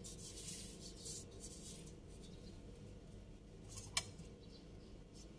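A few soft scraping strokes of a utensil smoothing cake batter level in a rice-cooker's inner pot, fading after the first couple of seconds. One sharp click about four seconds in.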